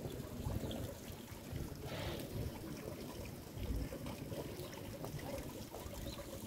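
Rain ambience: water trickling and dripping onto wet stone and cobblestones, an even wash of noise with a brief louder hiss about two seconds in.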